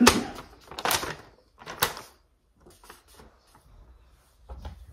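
A paper instruction sheet being unfolded and handled: crisp rustles and crackles, the sharpest three in the first two seconds, then softer crackling.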